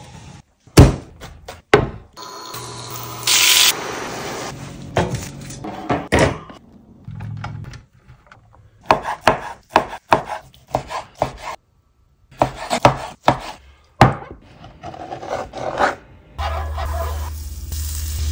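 Kitchen work sounds in quick succession: a loud knock about a second in as the oven door is handled, clatter and a brief hiss, then a chef's knife slicing steamed pork belly on a bamboo cutting board in a run of short strokes.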